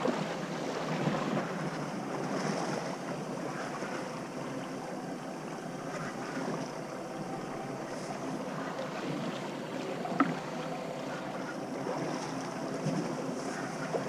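Wind buffeting the microphone over open-ocean water sloshing against a small boat's hull, steady throughout, with one sharp click about ten seconds in.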